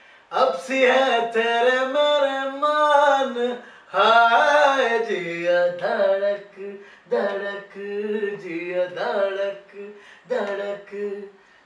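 A man singing unaccompanied, in long phrases of held notes that waver and bend in pitch, with short breaks for breath between phrases.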